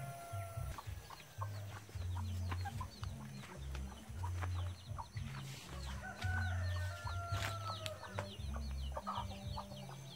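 Chickens clucking and small birds chirping repeatedly, over background music with a low bass line.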